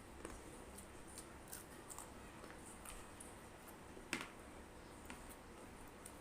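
Faint eating sounds while someone eats fried chicken with rice: scattered soft clicks and smacks, with one louder sharp click about four seconds in.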